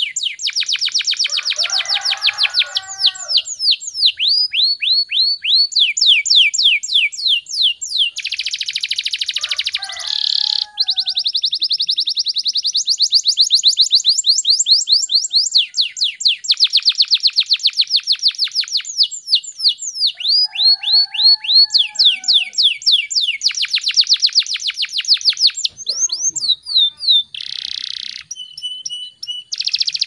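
Domestic canary singing a fast, dense song: long runs of rapidly repeated falling whistled notes and quick buzzy rolls, broken by brief pauses between phrases.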